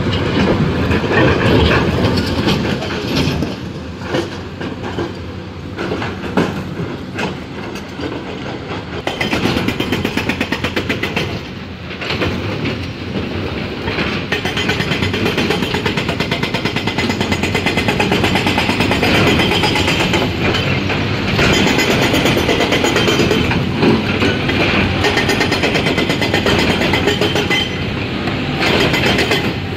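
Hydraulic rock breaker on an XCMG XE210 excavator hammering sandstone blocks: a fast, steady rattle of chisel blows, easing briefly about twelve seconds in.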